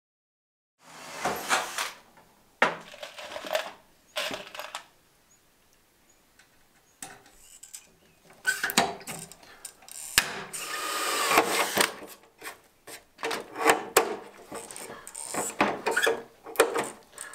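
Hand pop-rivet tool setting rivets in a sheet-metal panel: a run of sharp metallic clicks, snaps and clatters, with a few longer rasping stretches in between.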